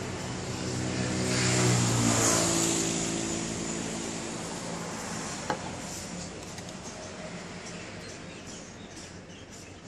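A motor vehicle passing by: its engine note and road noise swell to a peak about two seconds in, change pitch, then fade away slowly. A single sharp click about five and a half seconds in.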